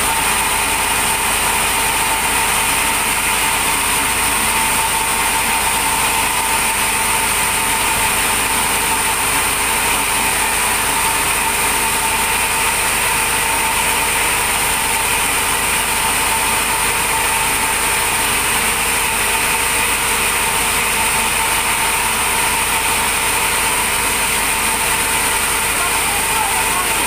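A machine running steadily at one constant speed, with an unchanging whine over a hiss.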